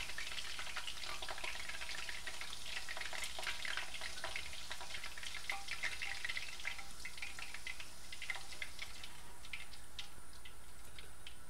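Beef strips coated in egg and cornflour frying in hot oil in a pan: a steady sizzle with dense crackling that thins to scattered pops over the last few seconds.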